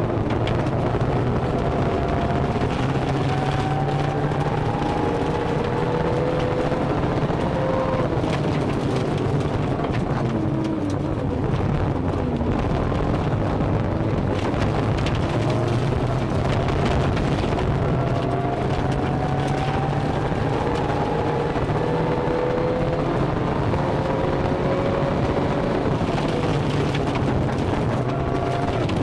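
Rally-prepared Toyota Corolla engine revving hard, its pitch climbing through each gear and dropping back at the shifts. It is heard from inside the cabin over a constant wash of road noise on gravel.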